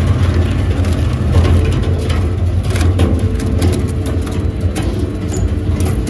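A WEIMA WL 6 I wood shredder running steadily, its toothed rotor chewing scrap wood. A constant low machine drone carries irregular cracking and splintering as pieces break up.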